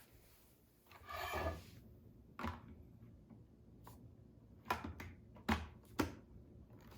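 Handling sounds, with no vacuum motor running: a rustle lasting under a second about a second in, then four short clicks or knocks spread over the rest.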